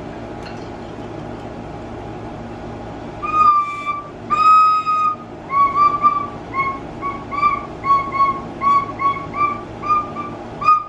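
A child playing a plastic recorder, starting about three seconds in: two held notes, then a string of short tongued notes about two a second, all at nearly the same high pitch.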